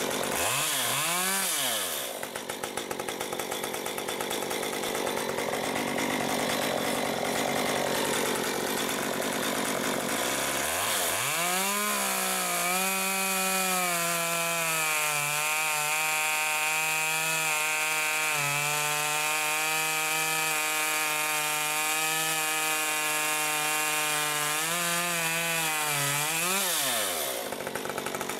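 Stihl MS 193 T two-stroke top-handle chainsaw: a quick blip of the throttle, then idling for several seconds. About ten seconds in it revs up and cuts through a log under steady load for around thirteen seconds, revving higher as it breaks free, then drops back to idle near the end.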